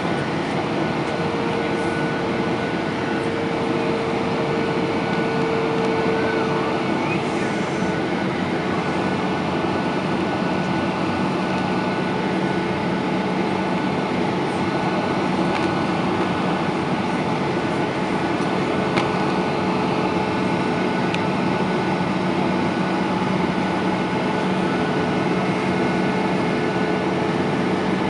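Steady in-flight cabin noise of a Boeing 737-800: the CFM56 turbofan engines' hum and air rushing past the fuselage, with a few faint constant engine tones.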